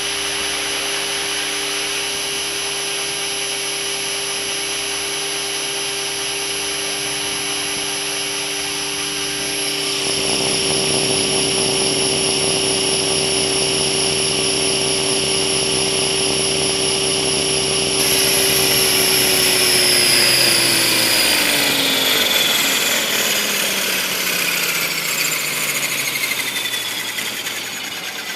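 Radio-controlled model helicopter's motor and rotor whining steadily. It gets louder about ten seconds in, then from about two-thirds of the way through falls steadily in pitch as it spools down.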